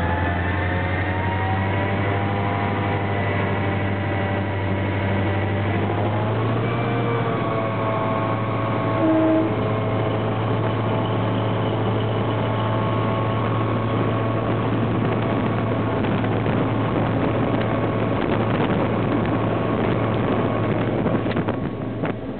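EMD G16 diesel locomotive's V16 two-stroke diesel engine running steadily, its engine speed rising about six seconds in. A short, louder tone sounds about nine seconds in.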